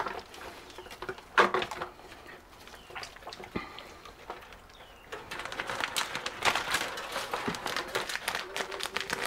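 Plastic zip-top bag rustling and crinkling as a raw chicken is pushed into it, with a brief louder sound about a second and a half in and denser crackling in the second half.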